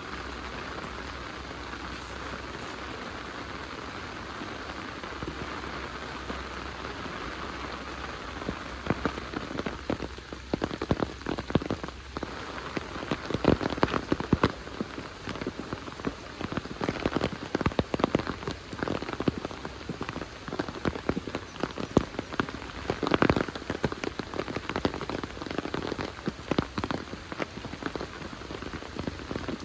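Heavy rain falling in a steady hiss. From about nine seconds in, sharp, irregular taps of drops close by stand out over it.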